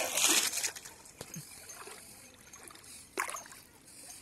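Water splashing and sloshing as a person wades waist-deep through a river: a loud splash at the start, then a shorter one about three seconds in.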